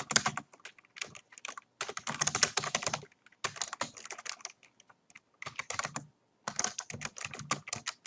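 Computer keyboard typing: quick runs of keystrokes broken by brief pauses of a fraction of a second.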